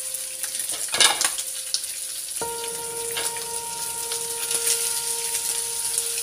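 Chopped peppers and onion frying in oil in a non-stick pan, sizzling steadily while a spatula stirs them through the bacon. A brief clatter about a second in as more vegetables are tipped in from a bowl.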